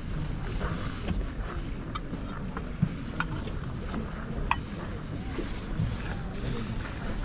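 Wind rumbling steadily on the microphone at an outdoor market, with faint background voices and a few short sharp ticks and clicks between about two and four and a half seconds in.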